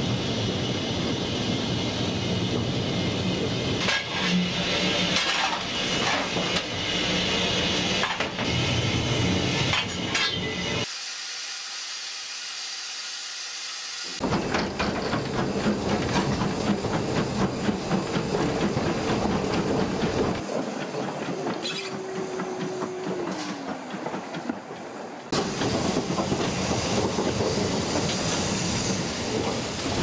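Steam locomotive 41313, an Ivatt Class 2 tank engine, running, heard from its footplate: the steady sound of the engine and its wheels on the rails. A quieter stretch of about three seconds comes before the middle, and a short falling squeal a little past the middle.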